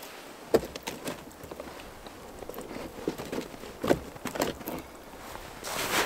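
Footsteps crunching through snow, irregular, with a few sharper cracks and knocks.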